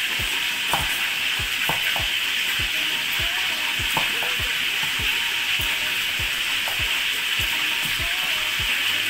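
Steady hiss of heavy rain, with a cleaver chopping bird's eye chillies on a wooden chopping block in soft, regular thuds about three times a second.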